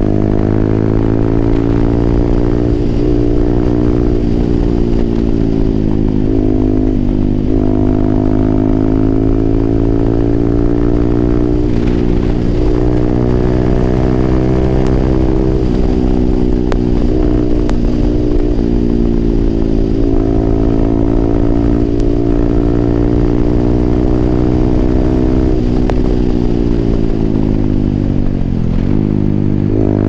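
Yamaha R15M's 155 cc single-cylinder engine running through an aftermarket SC Project exhaust while riding, its note rising and falling slowly with the revs, with a short drop in revs twice, early on and near the end.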